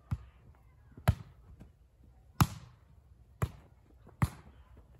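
A volleyball being hit back and forth in a rally: five sharp slaps of hands and forearms on the ball, about one a second.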